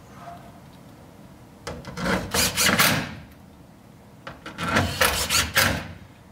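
Cordless drill/driver running in two bursts of about a second or more each, driving two screws into a terminal board. The first burst comes about two seconds in, the second about four and a half seconds in.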